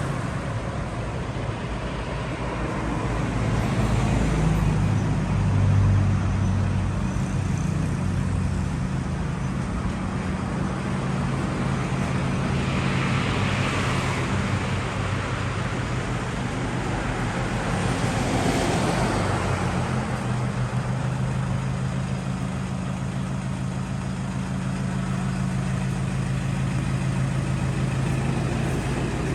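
A motor vehicle's engine running steadily with road traffic around it, and two louder swells of passing traffic around the middle.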